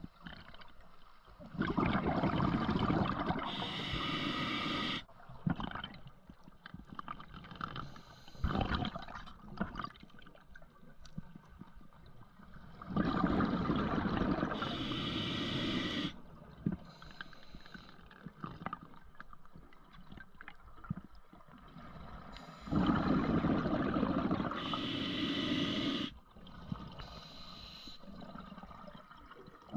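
Scuba diver breathing through a regulator underwater: three breaths about ten seconds apart, each a few seconds of loud bubbling and hissing, with quiet water noise between them.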